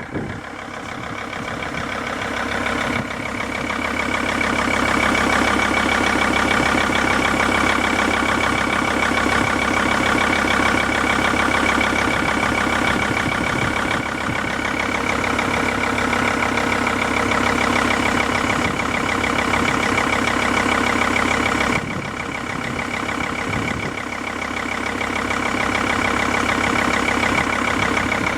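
Mercedes-Benz W211 E-Class engine running at idle with a fast, even knock, the knock the owner is recording. It grows louder over the first few seconds, drops about 22 seconds in, then builds again.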